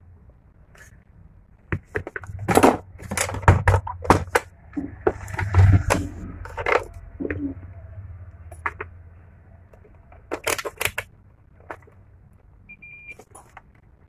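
Clicks, taps and clatter of small tools and a phone circuit board being handled and set down on a work mat, with some low handling rumble. Near the end a single short high beep, from a digital multimeter's probe being set on the keypad contacts.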